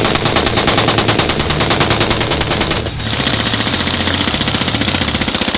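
Fully automatic rifle fire: a long, rapid, unbroken string of shots, a brief break about three seconds in, then another long burst.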